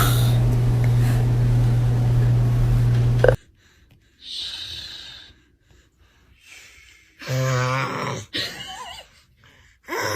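A steady low hum that cuts off suddenly about three seconds in, followed by a person snoring: a breathy snort, then short rattling snores near the end.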